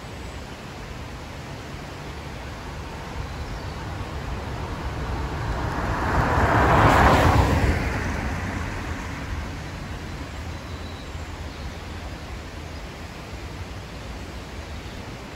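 A car driving past along the road, its noise swelling to a peak about halfway through and then fading away.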